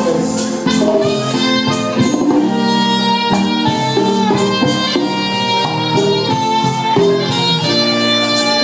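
Live Latin dance band playing, with saxophones carrying held melody notes over a steady percussion beat.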